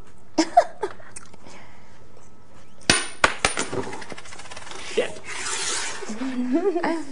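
A coin bounced hard on a tabletop in a game of quarters: one sharp metallic clink with a brief ring, then two lighter clicks as it skips on.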